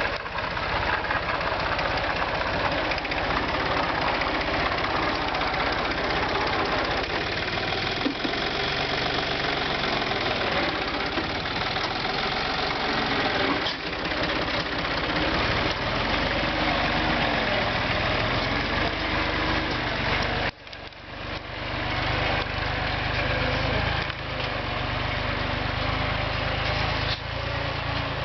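Yanmar FX22D compact tractor's diesel engine running steadily while ploughing. About twenty seconds in, the sound drops sharply, then builds back up.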